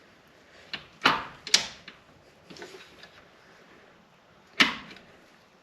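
Tools and metal parts being handled during the work: a few sharp clicks and knocks, two close together about a second in and a louder one near the end.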